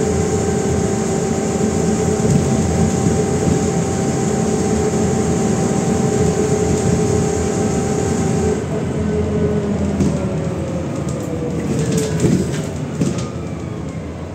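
MAZ-105 articulated city bus under way, heard from inside the cabin: diesel engine and drivetrain running with a low rumble and a steady whine, which falls in pitch as the bus slows from about nine seconds in. A few rattles and knocks come near the end.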